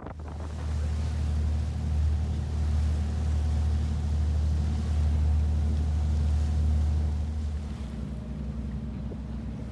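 Steady low hum of a boat's engine heard from on board, over an even rushing hiss of wind and water. The deepest part of the hum eases off about eight seconds in.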